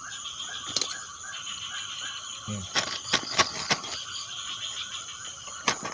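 Frogs calling from the swamp, one call pulsing steadily about four times a second over a higher continuous chorus. Several sharp knocks come through the middle and once near the end.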